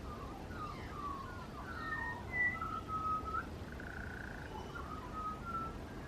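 A songbird singing a varied phrase of clear whistled notes, some sliding up or down and one warbled, over a steady low background rumble.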